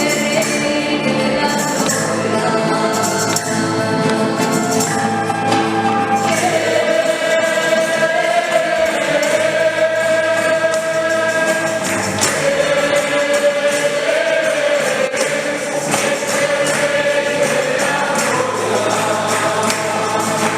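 Guatemalan choir singing a hymn in long, held notes, accompanied by rhythmic percussion.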